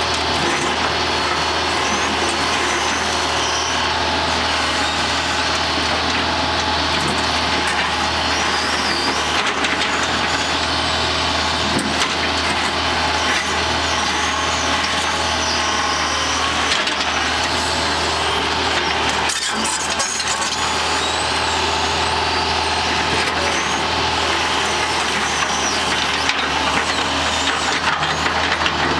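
Hydraulic excavator's diesel engine running steadily under working load while the bucket pushes a vertical pipe down into gravel.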